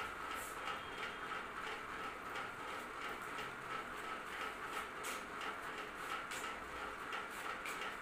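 Ceiling fan running with a steady hum and a fast, regular ticking of about four ticks a second. A few louder swishes of a comb drawn through long hair.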